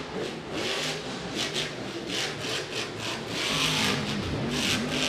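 Son-uva Digger monster truck's supercharged V8 engine revving up and down as the truck is driven hard across the dirt, with repeated short rushes of hiss over it.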